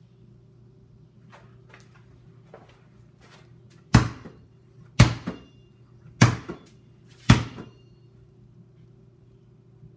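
A freshly repaired, reinflated Spalding basketball bounced hard four times, about a second apart, each bounce followed by a softer second hit. A low steady hum runs underneath.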